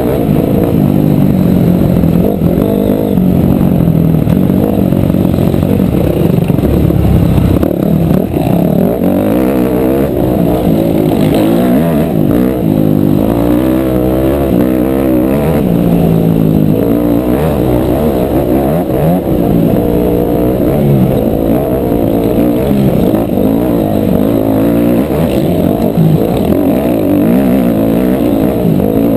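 Dirt bike engine running under throttle along a gravel trail, its revs repeatedly climbing and dropping.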